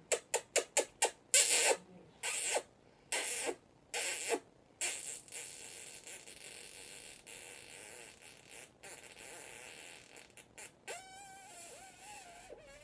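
Close kissing smacks between a woman's lips and an African grey parrot's beak: a quick run of smacks in the first second, then slower kissing sounds for a few more seconds. After that only a low hiss with a few clicks, and a short wavering whine near the end.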